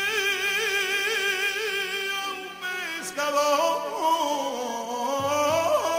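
A song with a singing voice: one long held note with vibrato that ends about two and a half seconds in, then a new sung phrase with gliding notes.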